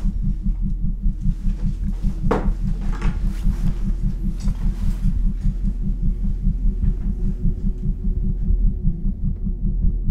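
Tense film-score sound design: a low, rapid, even throbbing pulse like a heartbeat under a steady low drone.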